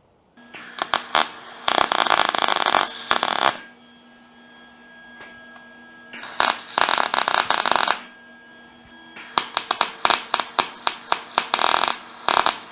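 Arc welding on steel brackets: three runs of sputtering, crackling welding, each a few seconds long, with the welding machine's steady hum in the pauses between them.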